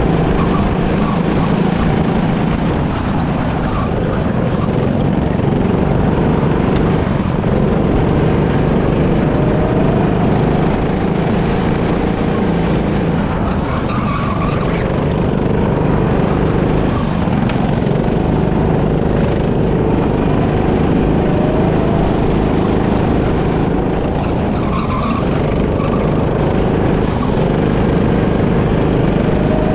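Go-kart running flat out on a track, heard from on board, its engine note rising and falling as it goes through the corners.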